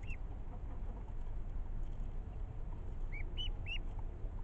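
Ducklings peeping: one short peep at the start, then three quick peeps a little past three seconds in, over a steady low rumble.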